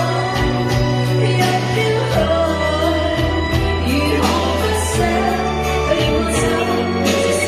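A pop song with singing over a steady bass line, with cymbal crashes every couple of seconds.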